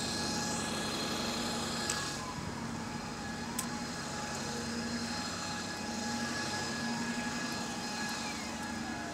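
Double-decker bus engine running steadily as the bus pulls away from the stop, with faint whines that slide up and down in pitch.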